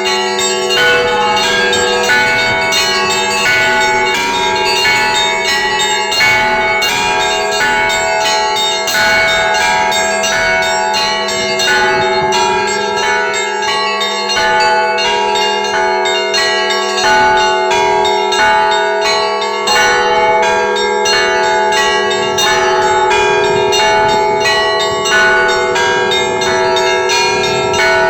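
Russian Orthodox monastery church bells rung by hand: several bells of different pitches struck in a rapid, continuous pattern, their tones overlapping into a sustained ringing. It is played by a bell-ringer who is still learning.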